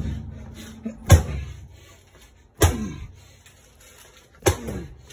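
Sticks of butter thrown against a microwave door, landing with three smacks about a second and a half apart, each followed by a short falling tone.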